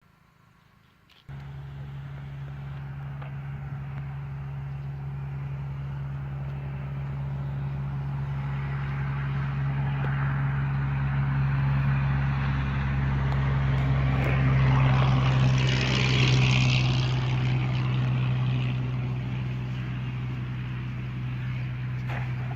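A motorboat engine running steadily, its low hum starting abruptly about a second in, with a rush of wind and water noise that swells in the middle and eases toward the end.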